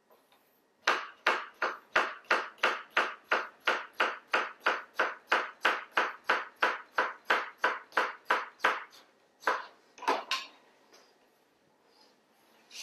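Chef's knife slicing a striped cucumber into thin half-moons on a cutting board: a steady run of crisp cuts, about three a second, for some eight seconds, then a few last cuts before it stops.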